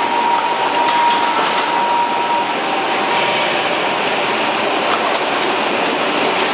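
Steady machinery noise of a truck-chassis riveting production line, with a faint whine that fades out about two and a half seconds in and a few light clicks.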